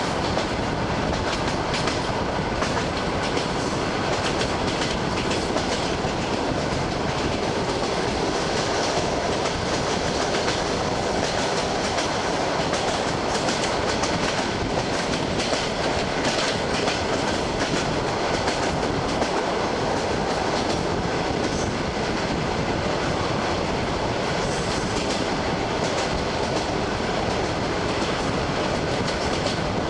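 Wheels of an ED9M electric multiple-unit train clattering over the rail joints at speed, over the steady rumble of the running train, recorded at a carriage window.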